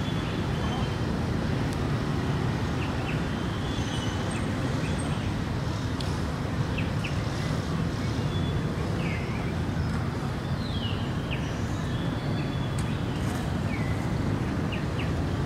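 Steady low rumble of distant road traffic with several short bird chirps and calls scattered through it, a few of them falling in pitch.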